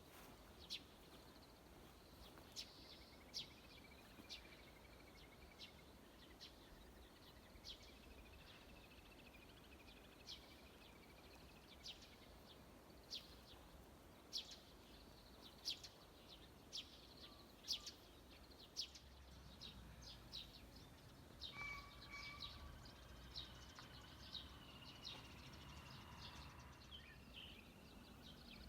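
Quiet ambience with faint, scattered short bird chirps, roughly one every second or so, and a thin, distant bird song in the background.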